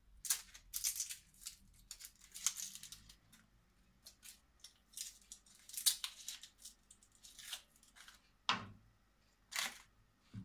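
Dry, papery onion skin being peeled and torn off by hand, in short, irregular crackling and tearing bursts.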